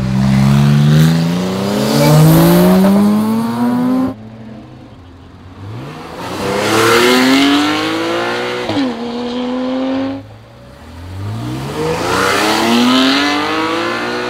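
Porsche 911 sports cars accelerating hard away one after another. Each engine note climbs steeply through the revs, twice with a sharp drop at an upshift before rising again.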